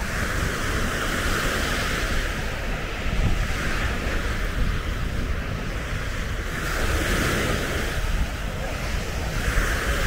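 Sea waves washing up on the beach, the hiss swelling and easing as each wave comes in, with wind rumbling on the microphone.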